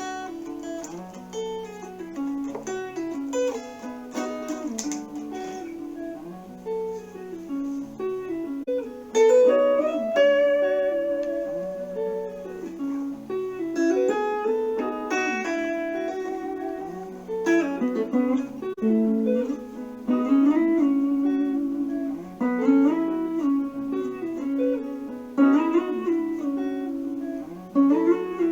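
Instrumental guitar music: a run of plucked notes over a low bass figure that repeats about every four seconds.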